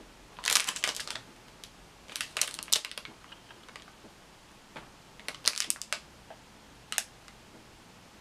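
Plastic snack-bar wrapper crinkling as it is handled, in four short bursts of crackle.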